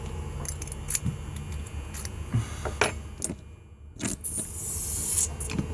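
Keys jingling and small metal clicks from handling a deadbolt lock cylinder and its keys during rekeying, with a brief hiss about four seconds in.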